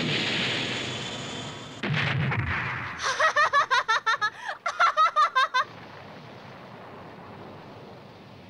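An explosion fades away, with a second heavy blast about two seconds in. A woman then bursts into a loud, rapid cackling laugh of about a dozen quick 'ha's that stops abruptly, leaving a low steady rumble.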